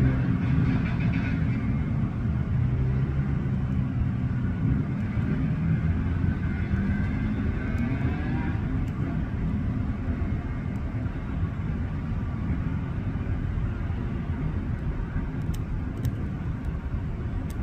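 Dirt bike engines running and revving among street traffic: a steady low engine drone, with a rev rising in pitch about eight seconds in.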